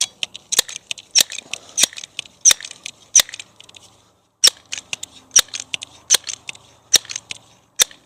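Multi-pump pneumatic pellet pistol being pumped: a sharp metallic clack on each stroke, about every two-thirds of a second, with a short pause about four seconds in.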